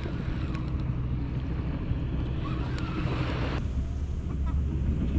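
Wind buffeting the microphone in a steady low rumble, over the wash of sea waves on the shore.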